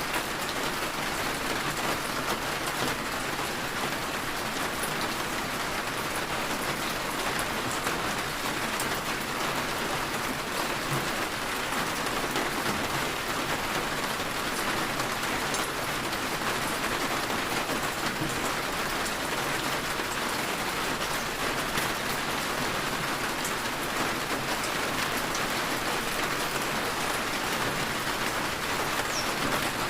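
Steady rain falling, an even hiss with no let-up. A short high chirp sounds near the end.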